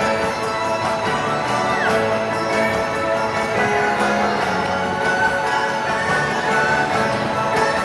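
Music playing steadily.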